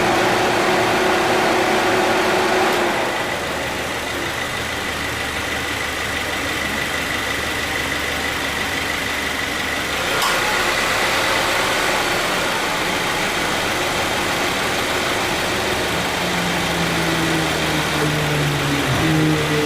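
2014 Subaru Forester idling with its air-conditioning compressor cycling, the note changing about three seconds in and again about ten seconds in. The compressor engages without the start-up noise it had from light wear, now repaired.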